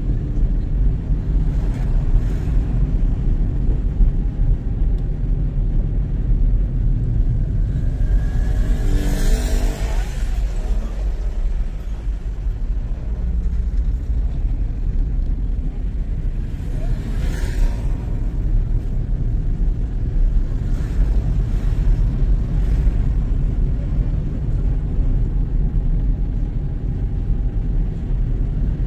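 Steady low rumble of road and wind noise from a vehicle driving along a town street. A louder passing sound sweeps by around nine seconds in, and another briefer one near seventeen seconds.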